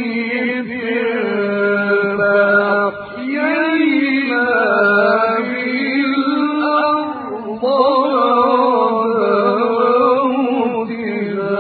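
A male reciter chanting the Quran in a slow, melodic tajweed style, holding long ornamented phrases. There are short breaks about three and seven and a half seconds in.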